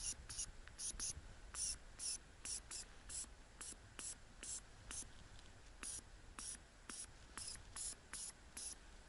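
Mouse-squeak predator call (fox call) blown in short puffs, two or three a second in an uneven rhythm. The squeak itself barely records, so it comes through mainly as thin, hissy chirps of air.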